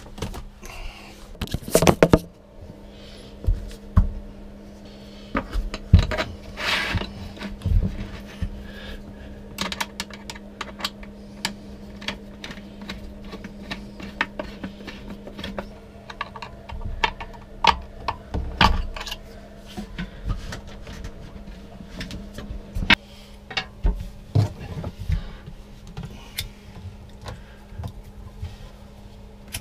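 Hands and tools working on a Sealand RV toilet's base and back fittings: irregular clicks, taps and knocks of parts being handled, with a louder clatter about two seconds in, over a steady low hum.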